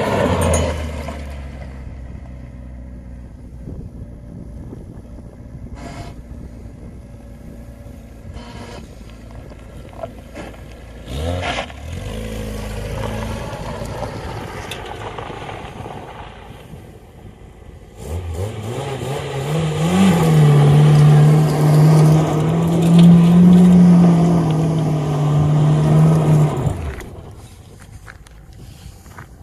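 Datsun 510's engine revs, then idles steadily for about ten seconds. From about two-thirds in it is held at high revs for roughly eight seconds while the car spins donuts on loose desert dirt, then drops away.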